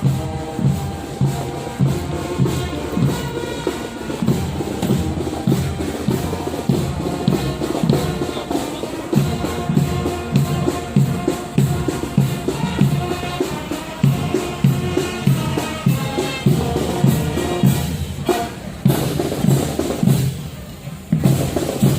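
Music with a steady drum beat, about two strokes a second, under a melody.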